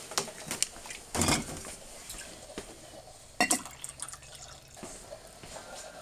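A few knocks and rattles of things being handled, then coffee poured from a glass coffee-maker carafe into a glass mug.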